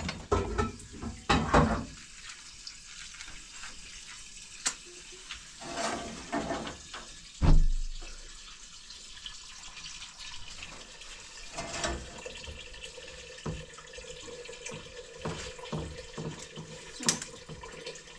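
Water running and splashing, with scattered clicks and knocks and one heavy thump about seven and a half seconds in.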